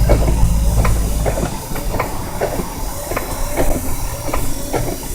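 Cabin noise of an '87 Jeep Wrangler YJ driving through a snowstorm: a steady low rumble that drops away about a second and a half in, over a regular clacking about two to three times a second.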